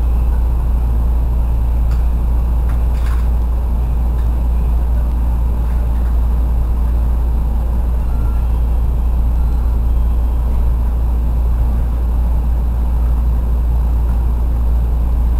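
Steady low drone inside a stopped 313 series electric train car, its air-conditioning and onboard electrical equipment running while the train is held at the platform.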